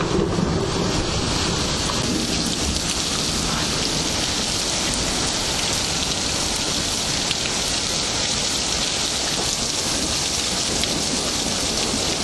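Steady rain hissing down in a thunderstorm, with a low rumble of thunder underneath.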